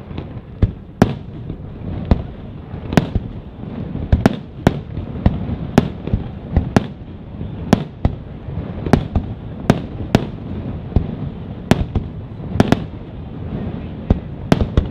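Aerial firework shells bursting in a steady barrage of sharp bangs, about two a second, over a continuous low rumble.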